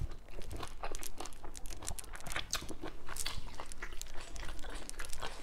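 Close-up crunching and chewing of crunchy raw vegetables: many irregular, quick crunches from bites and chews.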